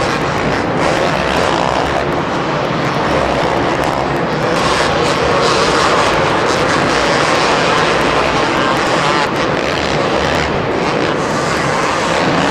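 Two-stroke motocross bikes running hard on the track, their engines revving and wavering in pitch as they ride past, loud and continuous.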